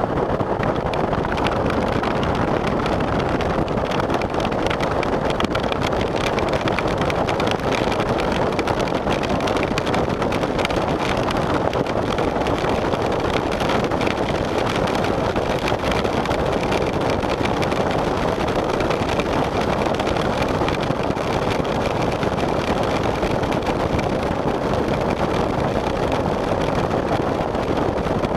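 Hard rain with the steady rush of a vehicle driving through it: a constant dense hiss with fine, rapid patter.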